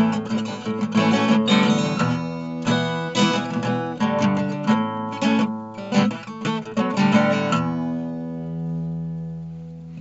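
Acoustic guitar music, strummed and picked; near the end a chord is left ringing and fades out.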